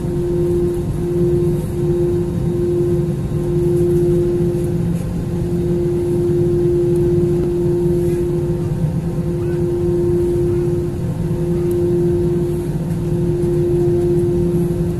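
Airbus A330 taxiing after landing, heard from inside the passenger cabin: a steady jet engine and cabin hum with one constant mid-pitched drone tone.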